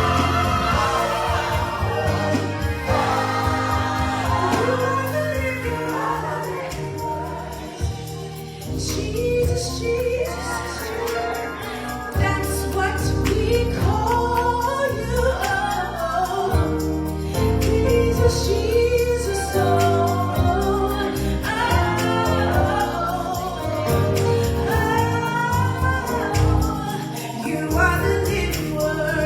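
Gospel choir singing with instrumental accompaniment, a sung melody line over steady bass and chords.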